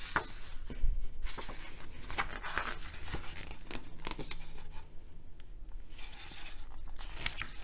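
Thick pages of a large hardcover art book being turned by hand, two at a time: a string of short paper rustles and swishes, one with each turn.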